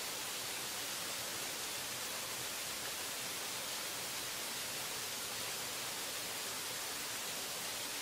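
Waterfall rushing: a steady, even hiss of falling water that does not change.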